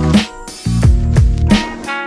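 Background music with a steady beat and repeated falling bass notes under sustained chords.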